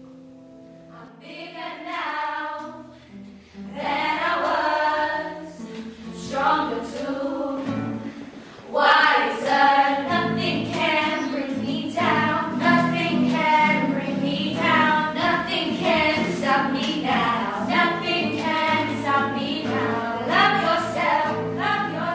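A small group of women singing an original song to guitar, starting softly and growing fuller and louder about nine seconds in.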